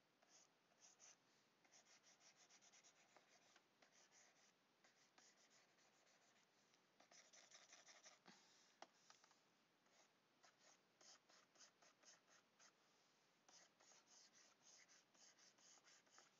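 Faint scratching of a pen stylus on a graphics tablet, in runs of rapid short strokes as shading is brushed in.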